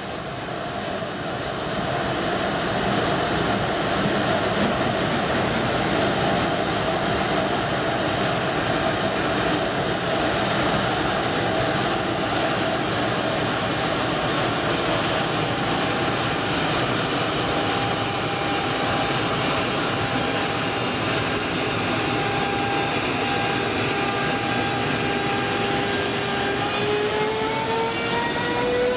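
JR Freight EF210 electric locomotive moving off slowly with a freight train, a steady mechanical rumble under a faint whine from its inverter and traction motors. Near the end the whine splits into several tones that rise together in pitch as the locomotive picks up speed.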